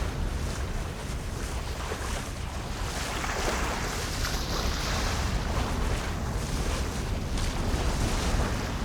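Water flowing steadily with splashing over a low roar, the splashes coming in irregular bright spurts, a little stronger about three to five seconds in.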